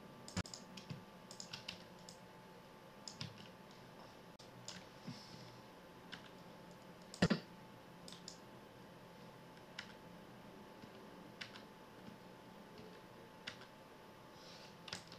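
Computer keyboard keys and mouse clicks at an irregular pace, with one louder knock about seven seconds in, over a faint steady hum.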